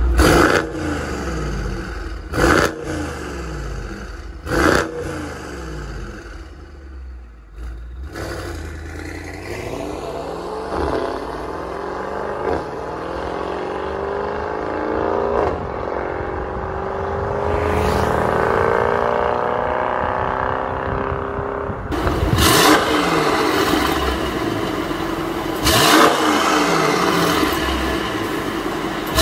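Mercedes-AMG GT63's twin-turbo V8 through catless downpipes and a valved exhaust: a few sharp rev blips, then a long hard acceleration climbing in pitch with breaks at the upshifts, then two more sharp revs near the end.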